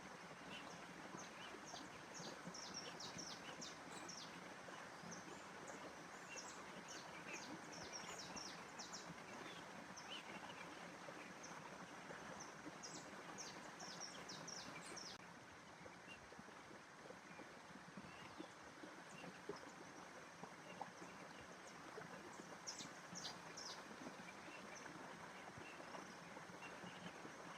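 Faint ambient nature sound: small birds chirping in short quick runs of high notes, in several clusters, over a steady hiss of background noise that dips slightly about halfway through.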